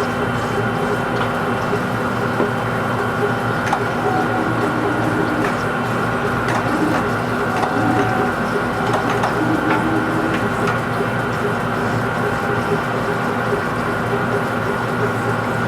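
Lathe running steadily while turning a large part: a constant machine hum with a steady high whine and a few faint clicks.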